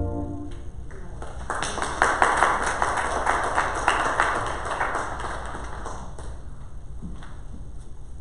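A small group clapping for a few seconds, a dense patter that fades out, followed by a couple of faint knocks.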